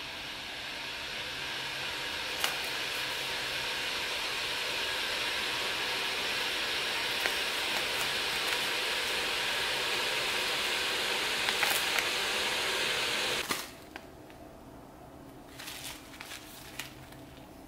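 A steady rushing hiss that builds slightly, then cuts off abruptly with a click about thirteen seconds in. Faint rustles and clicks follow.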